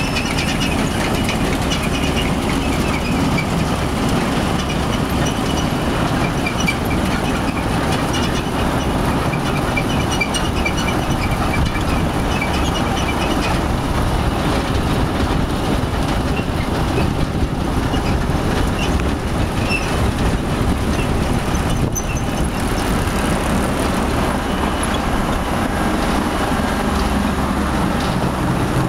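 Potato sorting and loading conveyors running steadily, with the potatoes tumbling and rolling along the belts. Faint high squeaks repeat through about the first half.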